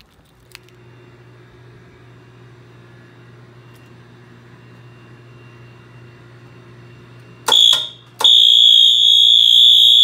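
Wheelock MT4 fire alarm horn strobe sounding, set off by a test of a Pyrochem kitchen hood suppression system: a short loud burst about seven and a half seconds in, then after a brief gap a steady, high-pitched continuous tone. Before it, only a low steady hum.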